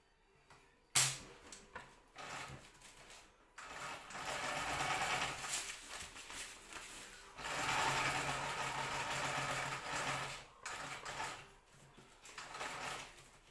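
Domestic sewing machine stitching a seam in kite fabric, running in stretches of a few seconds with stops between, the longest run in the middle and shorter bursts near the end. A sharp click about a second in is the loudest single sound.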